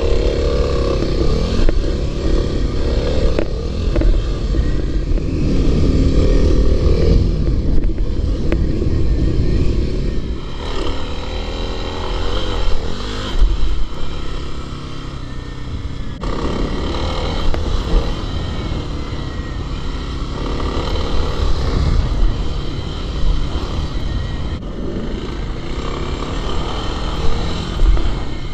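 Kawasaki KLX300 dirt bike's single-cylinder four-stroke engine being ridden, revving up and easing off again and again as the throttle is opened and closed.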